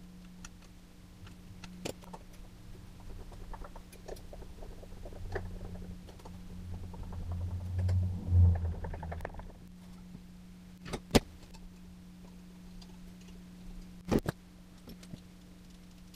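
Hand screwdriver driving the small mounting screws of a humbucker pickup ring into a guitar body: a grinding, scraping turn that builds to a peak about eight seconds in, among small clicks of handling. Two sharp clicks follow, about three seconds apart, over a steady low hum.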